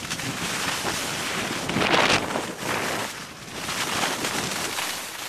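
Wind buffeting the camera's microphone as the skier goes fast downhill, a steady rushing noise that swells to a louder gust about two seconds in.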